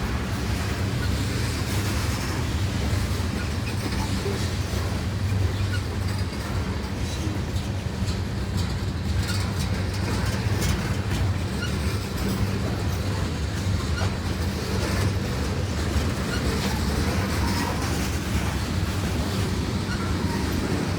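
Long Norfolk Southern freight train rolling past with a steady low rumble and scattered clacks of wheels over the rails.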